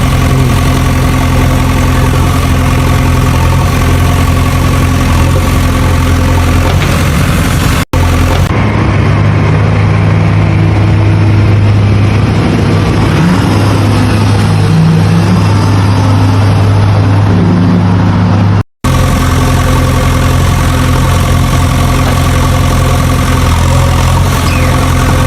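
Engine running steadily at idle, with a low, even hum. It is cut off abruptly twice by edits; the middle stretch sounds duller and muffled, with small wobbles in pitch.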